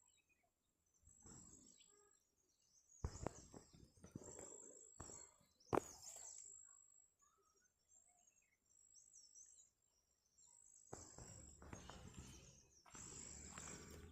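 Faint outdoor ambience: scattered small bird chirps over patches of rustling noise that come and go, with a single sharp click about six seconds in.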